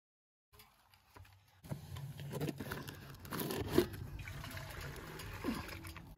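A plastic jug scooping maize flour out of a woven plastic bag: the bag crinkles and rustles, with soft crunches and clicks, starting about a second and a half in.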